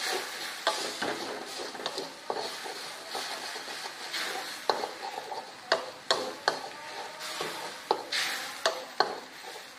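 Wooden spatula scraping and knocking irregularly against an aluminium wok as spice paste is stirred, over a sizzle that dies away toward the end.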